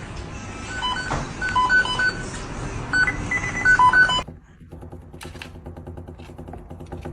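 Short electronic beeps at a few different pitches, in an irregular run, for about four seconds. Then a sudden change to a quieter, steady pulsing buzz, with a brief high squeak about five seconds in.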